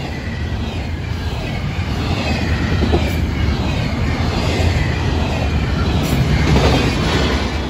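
Florida East Coast intermodal freight train's double-stack container well cars rolling past close by: a steady low rumble of steel wheels on the rails, swelling louder near the end.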